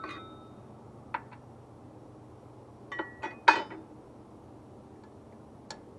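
Metal tools and steel parts of a portable sawmill clinking and tapping against each other, about seven separate strikes, some ringing briefly; the loudest comes about three and a half seconds in.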